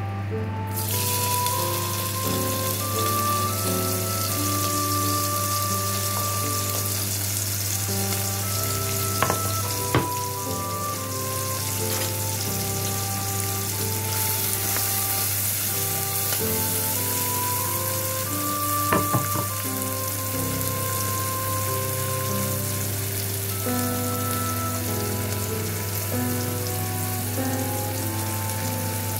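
Chopped onions sizzling in hot oil in a pot. The sizzle starts suddenly about a second in as the onions hit the oil and then runs on steadily, with a few sharp knocks around the middle.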